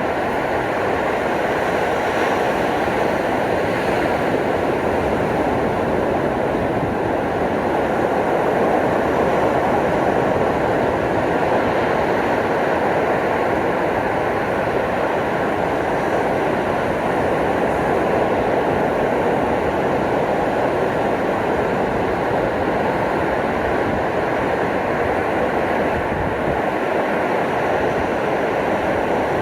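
Ocean surf washing on the shore: a steady, continuous rush with no distinct breaking waves standing out.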